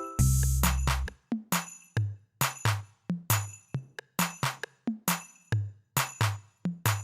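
Background music: an electronic track with a steady drum-machine beat and a deep bass.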